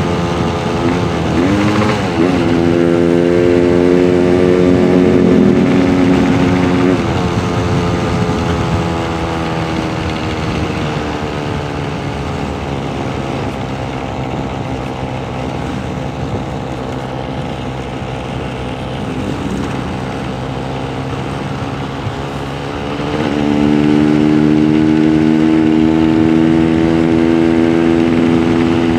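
Yamaha RX-King's two-stroke single-cylinder engine running under a riding motorcycle, its pitch changing with the throttle. There is a quick rev about two seconds in, then a steady high pull for a few seconds. The engine eases off and runs quieter through the middle, and opens up again, louder and steady, about four-fifths of the way through.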